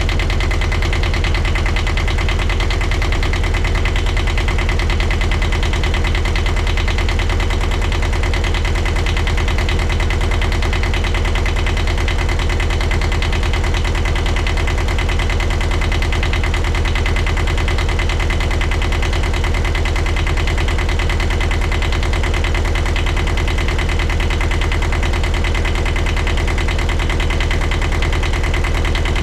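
Sailboat's small inboard diesel engine running steadily, a fast even chugging beat, with its blocked exhaust manifold newly replaced.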